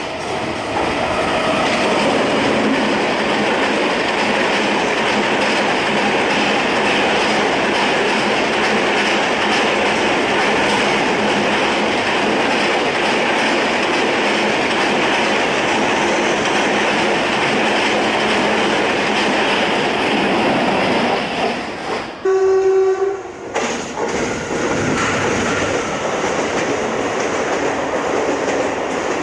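Indian Railways train passing close by, a steady loud noise of wheels on the rails. About three quarters of the way through, a horn sounds once for about a second and a half.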